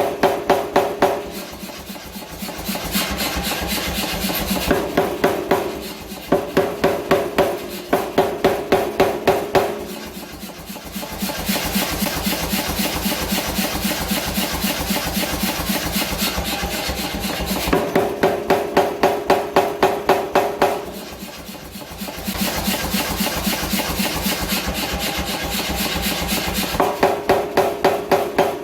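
Steady, rapid hammer blows forging H13 tool steel, about three to four strikes a second. The blows alternate between stretches with a clear metallic ring and stretches of duller, hissier strikes.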